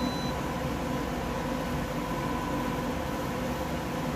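Steady background hiss with a faint hum, with no distinct sound event. A thin high tone stops a fraction of a second in.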